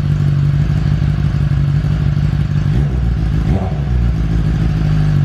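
2017 BMW S1000RR's inline-four engine running steadily with its exhaust removed, just started for the first time after sitting with a dead battery. A brief rev rises and falls about three seconds in.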